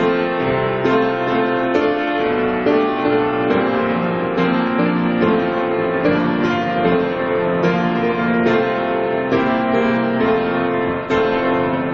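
Slow instrumental music on a keyboard instrument, held chords changing about once a second.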